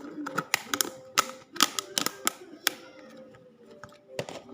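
A quick, irregular run of sharp clicks and taps, densest in the first three seconds and thinning out after that, over faint background music.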